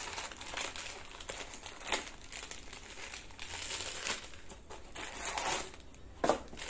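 Clear plastic wrapping crinkling and rustling as it is handled and pulled out of a small cardboard box, with a couple of sharper crackles.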